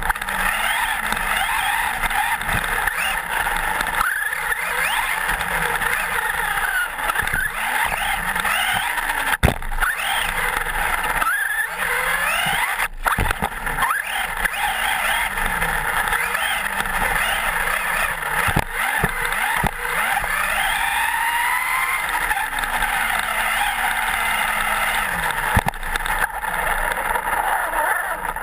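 Electric Traxxas Slash 4x4 RC truck heard from a camera mounted on it: a motor and gear whine that rises and falls with the throttle over steady tyre noise on dirt. A few sharp knocks break in along the way.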